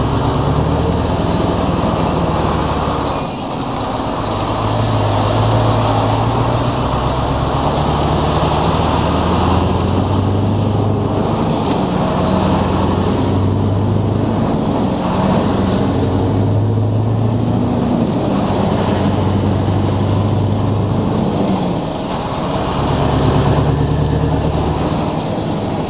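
Scania R500 V8 diesel truck engine heard from inside the cab while driving, over road noise. The engine note climbs in pitch and drops back several times, with a faint high whistle that rises and falls.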